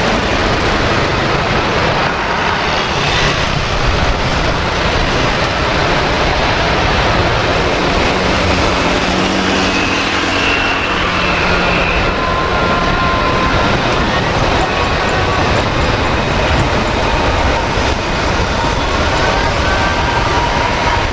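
Airbus A330-300's Rolls-Royce Trent 700 turbofan engines running at taxi power as the airliner rolls along the ground: a steady rumble with a thin, held whine.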